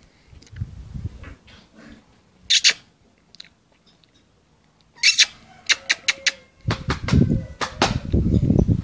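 A small puppy gives two short, high yips about two and a half seconds apart, followed by a few light clicks and a low rumble near the end.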